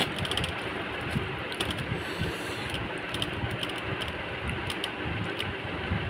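Steady background hiss with scattered light clicks and taps of fingers tearing roti and scooping curry against a steel plate and bowl.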